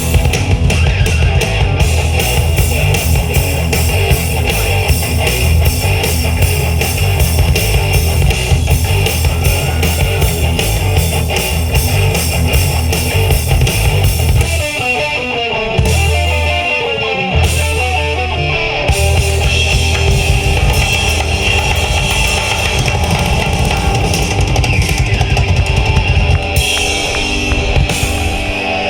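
Live rock band playing an instrumental passage on electric guitars, bass guitar and drum kit. About halfway through the drums drop out for a short break with two long held low notes, then the full band comes back in.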